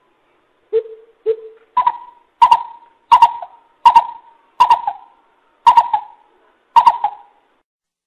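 Greater coucal calling: a series of deep hooting notes, two low ones then about seven higher ones coming about once every 0.7 seconds, each trailing off in an echo.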